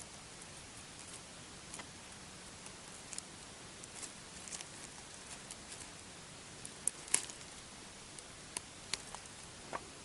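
Faint scattered rustles and light clicks over a steady hiss, with two sharper clicks close together about seven seconds in.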